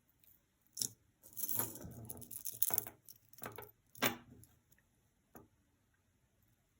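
Small metal costume jewelry jingling and clinking as pieces and chains are handled, with a few sharp clicks and a longer jangle about a second in.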